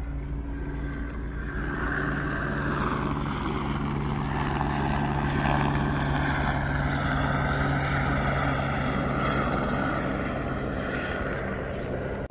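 Helicopter in flight, a steady drone of rotor and engine with an even low hum.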